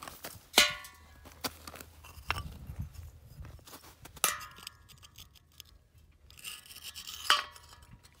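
A rusted sheet-metal disc and a clay target being picked up and knocked together by hand: three sharp clinks that ring briefly, about half a second in, at about four seconds and just after seven seconds, with light scraping between them.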